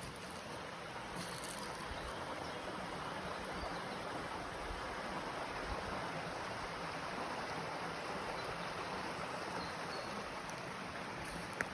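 Steady rushing of running water, swelling slightly in the middle, with one brief sharp tick near the end.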